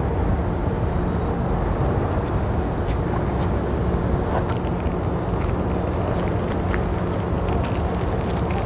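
Steady low rumble of outdoor street noise, with faint clicking and rustling from about four seconds in.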